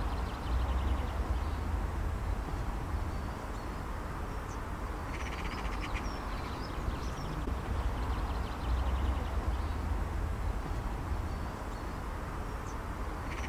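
Wind rumbling on the microphone, with birds calling: short high chirps, and rattling calls about five seconds in and again near the end.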